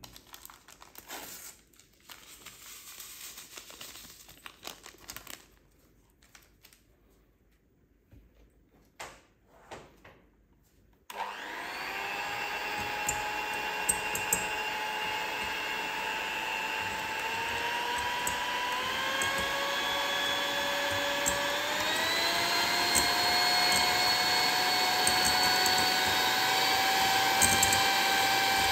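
A few light handling knocks, then about eleven seconds in an electric kitchen mixer starts up, whipping a mixture with a steady motor whine. About halfway through the whine steps up in pitch and keeps creeping higher.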